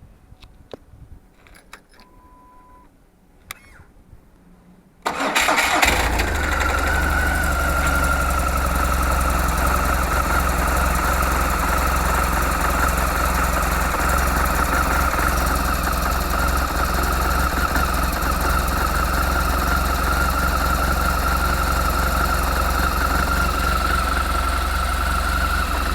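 2004 BMW R1200GS's air/oil-cooled boxer twin started about five seconds in, after a few clicks and a short beep, then idling steadily with a constant high whine above the engine note. The owner is asking whether a noise from this bike comes from the clutch or the gearbox.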